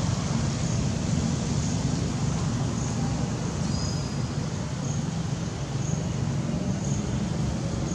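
Steady low outdoor rumble, like distant road traffic, with a faint high-pitched chirp repeating about once a second.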